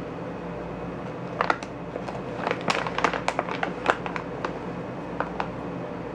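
A steady low hum with a flurry of small sharp clicks and crackles, thickest in the middle and thinning out near the end.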